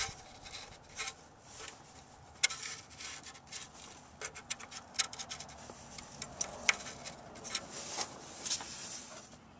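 Rubbing and scratching with scattered sharp clicks as a rubber spark plug wire boot is handled and pushed onto a spark plug; the sharpest clicks come about two and a half and about six and a half seconds in.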